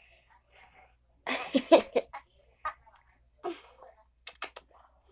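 A girl's attempt to sneeze: one loud burst of breath and voice about a second and a half in, then several short, quieter sniffs and breaths.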